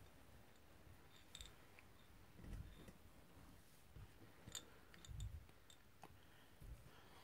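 Near silence in a small room, broken by a few faint short clicks and soft low thumps spaced a second or so apart.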